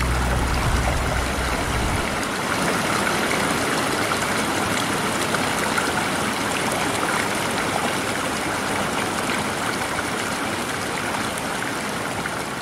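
Spring water gushing from an outlet and splashing into a pool: a steady rushing splash with no break.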